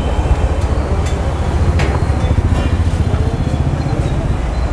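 Steady low rumble of road traffic, with a few faint light clicks over it.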